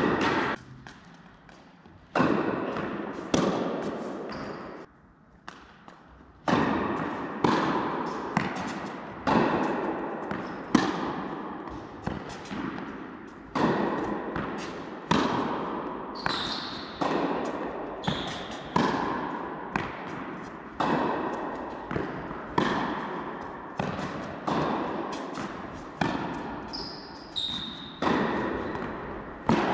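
Tennis balls struck by rackets and bouncing on the court in a rally, roughly one sharp pop a second, each echoing in a large indoor hall. A few short high squeaks are heard among them.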